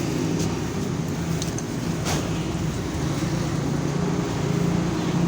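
A vehicle engine running steadily in a low drone, with a few faint clicks about two seconds in.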